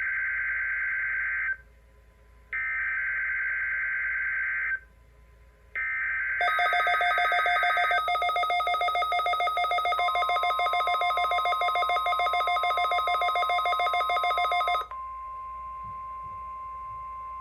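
NOAA Weather Radio weekly test signals. First come three harsh digital screeches of SAME header data, each about two seconds long with a second's gap between them. Then a loud, rapidly pulsing multi-tone alarm sounds for about eight seconds. The steady 1050 Hz warning alarm tone comes in under the alarm about ten seconds in and carries on alone, quieter, after it stops.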